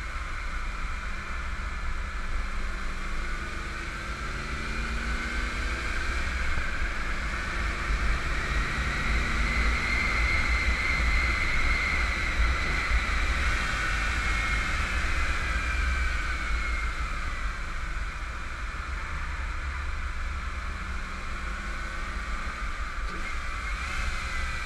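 1991 Camaro Z28's 305 TPI V8 running hard on track, its pitch and loudness climbing steadily under acceleration to a peak about halfway through, then easing and falling away. A constant low rumble runs underneath.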